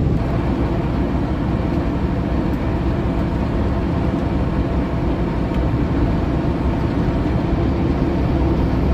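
Semi truck under way at highway speed: a steady drone of engine and road noise that holds level throughout.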